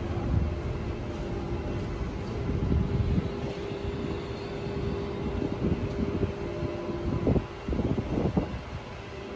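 Stationary Tangara electric train humming at the platform, a steady held tone from its onboard equipment over a gusty low rumble of wind on the microphone. Two brief louder noises come near the end.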